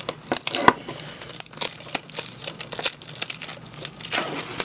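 Plastic shrink-wrap being torn and peeled off a Blu-ray SteelBook case, crinkling in a quick, irregular run of crackles.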